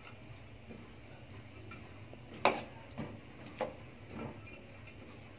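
Metal spatula clinking against a wok while stirring a thick chicken and potato curry, four knocks about half a second apart past the middle, the first loudest, over a low steady background noise.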